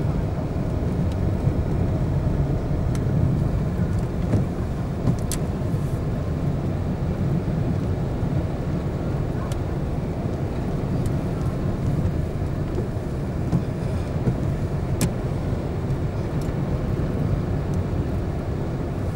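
Car driving on a road, heard from inside the cabin: a steady low engine and tyre rumble, with a few brief clicks.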